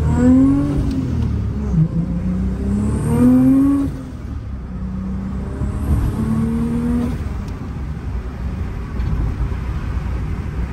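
Cabin sound of a 2001 Audi S4's built 2.7-litre twin-turbo V6, converted to one big turbo, pulling under acceleration. The engine note rises, dips about a second in, then climbs again. About four seconds in it falls quieter and runs steadily at cruise.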